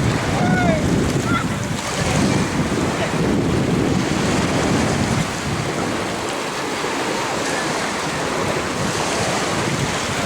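Wind buffeting the handycam's microphone over the steady wash of beach surf. The wind rumble is heavier for the first five seconds or so, then eases.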